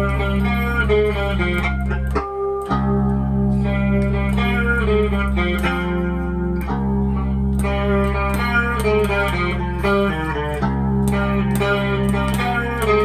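Electric guitar tuned to drop C playing a melodic instrumental passage of an original song over a steady low bass line; the music breaks off briefly about two seconds in.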